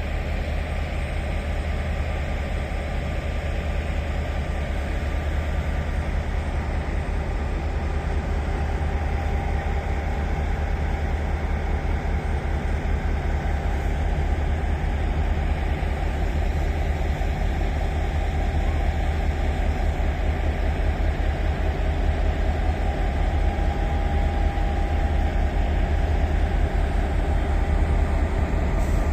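Steady drone of South African Class 5E1 electric locomotives standing with their blowers running, growing slightly louder towards the end.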